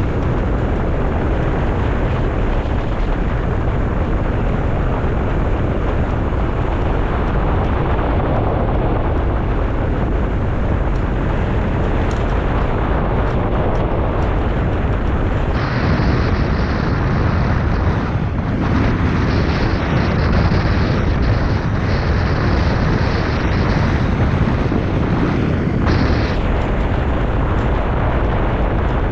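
Wind buffeting the microphone as a loud, steady roar. From about halfway in, a high, steady tone sits over it for around ten seconds, then stops.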